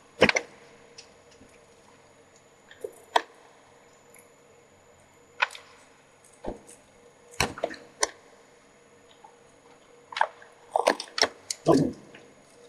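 Sparse small clicks and taps of a thin metal hand tool against a Macintosh SE/30 logic board as components are fitted, with a quick cluster of them near the end, over a faint steady hum.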